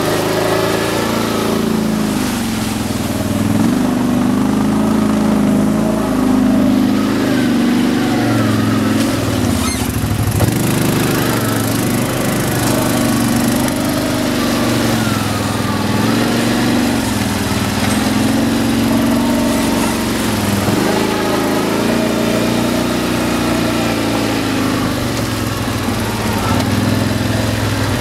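An 800 cc ATV engine running under the rider, its revs rising and falling again and again with the throttle on a slow trail ride.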